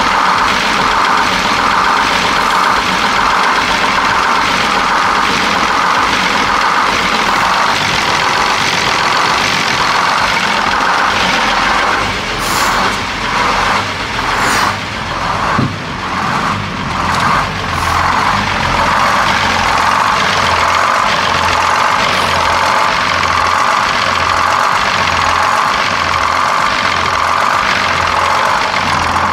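Detroit Diesel 6-71 two-stroke diesel running steadily while it warms up after starting. A few brief knocks come a little past the middle.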